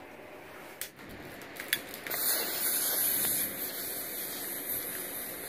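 Lighter clicked a few times, then a steady gas hiss while it is held lit, loudest for a second or so before easing off.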